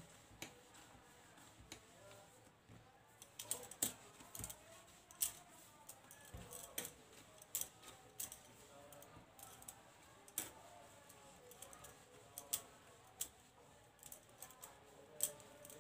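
Hands kneading and pressing a small ball of dough on a hard surface, with scattered, irregular light clicks and clinks from the bangles on the wrists knocking together and against the surface.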